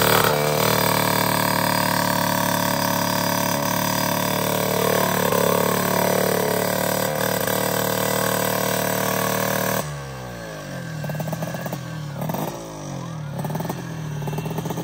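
Drag-racing motorcycle engine running at a steady fast idle, then dropping abruptly about ten seconds in to a lower, uneven idle with repeated short throttle blips.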